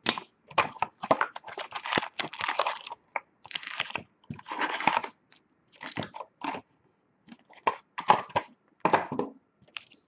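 Plastic wrapping and packaging being torn and crinkled in a run of irregular crackling bursts, as a sealed box of hockey trading cards is opened.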